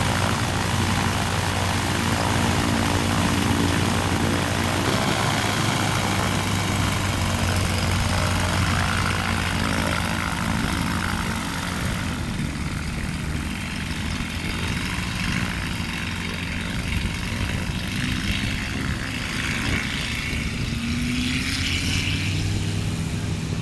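Propeller engine of a single-engine ultralight airplane running steadily, heard first close up at the cockpit and then from outside as the plane moves across a grass strip. Near the end the engine pitch rises as it speeds up.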